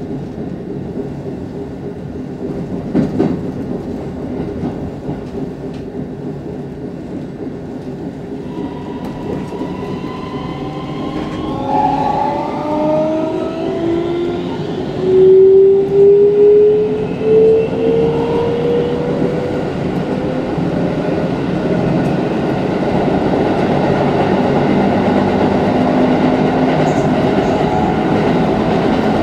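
Keikyu New 1000 series electric train with Siemens-built inverter drive, heard from the driver's cab: the traction motors whine in several tones that climb in short steps as the train gathers speed. This gives way to louder, steady rolling noise of the wheels on the rails, with some clickety-clack.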